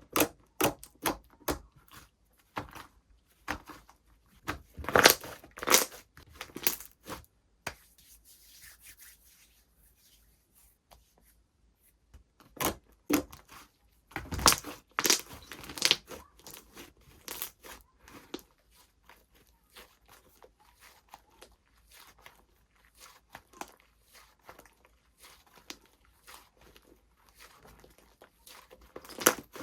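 Hands playing with slime: irregular sticky pops, clicks and tearing sounds as it is pressed, pulled and folded, with a quieter, sparser stretch about a third of the way in.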